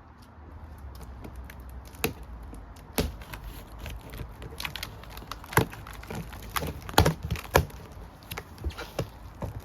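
Irregular clicks and knocks from handling the parts and packaging of a new electric lawn mower, louder around seven seconds in.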